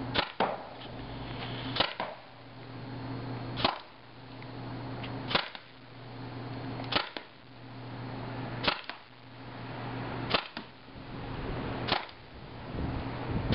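Tippmann TPX CO2-powered paintball pistol firing single shots at an even pace, about eight sharp cracks roughly one every 1.7 seconds, some with a second click just after.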